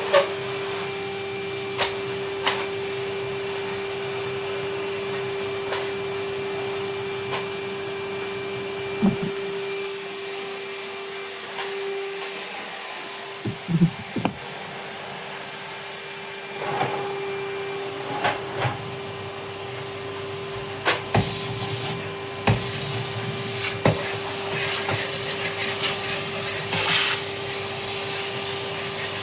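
Vacuum cleaner running with a steady whine over a hiss of suction. Sharp knocks and scrapes of the cleaning tool come now and then. The whine drops out for a few seconds near the middle.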